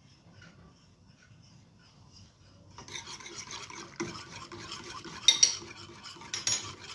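A silicone whisk beating milk sauce in a stainless steel saucepan: a quick scratchy swishing that starts about three seconds in, with a few sharp knocks against the pan.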